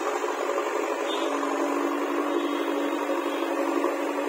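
JCB backhoe loader's diesel engine running steadily under load as the machine drives with a loaded front bucket. A steady pitched hum comes in about a second in.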